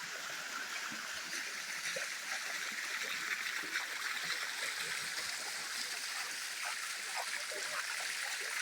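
Waterfall water running and splashing over rock: a steady, even hiss.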